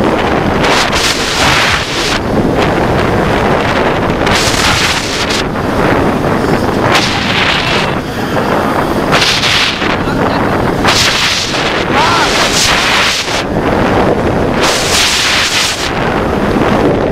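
Loud wind noise on the microphone, surging every second or two, over the rumble of the Lightning Rod roller coaster train running fast along its track. The rider calls the ride rough.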